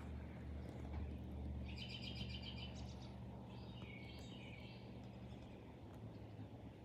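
A small bird chirping in two quick runs of repeated notes, starting about two seconds in and again near the middle, over a low steady rumble.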